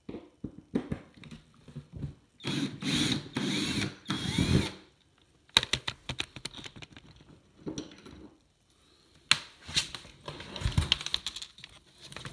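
Handling noise as a foam-board and OSB Halloween crypt prop is turned over: scattered knocks and clicks, with a louder run of scraping about two and a half seconds in that lasts a couple of seconds, and more knocks and scrapes near the end.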